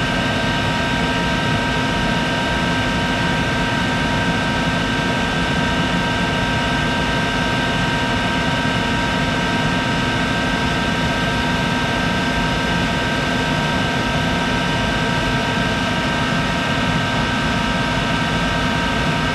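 1951 Monarch 10EE lathe running steadily at its top speed of 2500 rpm, a constant whine of several steady tones over an even mechanical hum.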